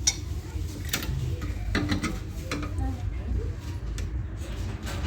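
Scattered metallic clicks and clinks of hand tools and car parts being handled, with a few sharp knocks about a second apart.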